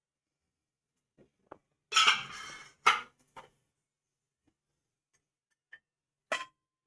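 A spoon clattering against a bowl. There are a few light clicks, then a loud clatter with a brief scrape about two seconds in, two more knocks, and a last clink near the end, as ginger-chilli paste is spooned into the batter.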